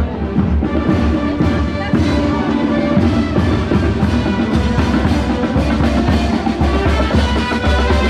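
Street marching band playing a march: trumpets, trombones and saxophones over a steady beat of bass drum and snare drum.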